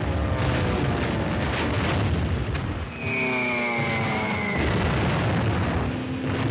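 Battle sound effects from a 1940s war film: repeated explosion booms over a steady aircraft engine drone. About halfway through, a high engine whine falls in pitch.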